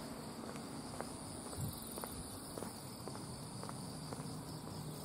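Insects trilling steadily in the grass, a thin high buzz, with faint footsteps about twice a second as someone walks.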